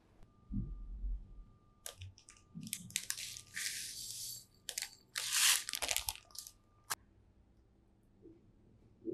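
Plastic packet crinkling as black sesame seeds are poured from it, with the seeds rattling into a small ceramic dish, in several bursts from about two to seven seconds in. A low thump comes just before.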